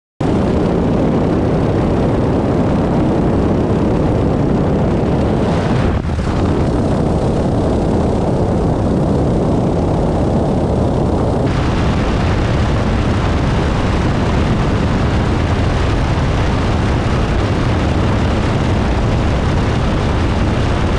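DHC-6 Twin Otter twin turboprop engines and rushing air in flight, a loud, steady noise. It shifts abruptly about six seconds in and again near twelve seconds, brighter after the second change.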